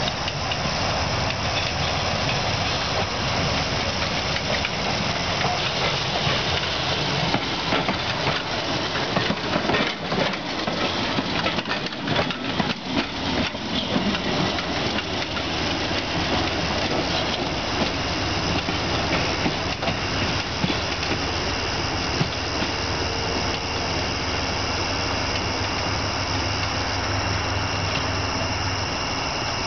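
Electric trolley car rolling past on the track. Its wheels click and rattle over the rail joints, most strongly between about 7 and 14 seconds in, over a steady hum.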